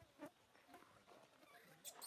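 Near silence with a few faint knocks and rustles; right at the end a baby monkey's high-pitched squeal starts.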